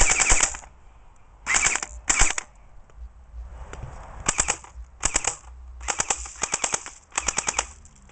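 ERO1 electric airsoft pistol firing on full auto in several short bursts of rapid clicking shots, with brief pauses between bursts.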